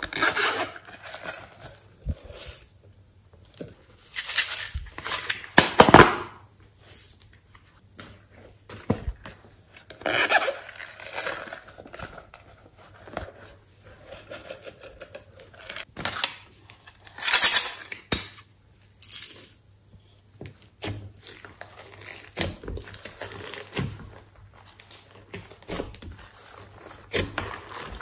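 Hands handling small plastic cases and containers and working over a glass dish of glitter: irregular clicks, scrapes and rustles. The loudest bursts come a few seconds in and again about two-thirds of the way through.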